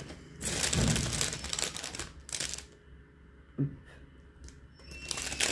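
Clear plastic packaging bag crinkling as it is handled, in two spells: one starting about half a second in and lasting about two seconds, and another near the end. A single soft knock comes midway.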